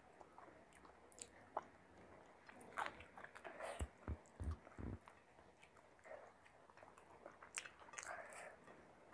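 Quiet close-miked chewing and wet mouth clicks of a person eating rice biryani by hand. A few dull low thumps come together about four to five seconds in.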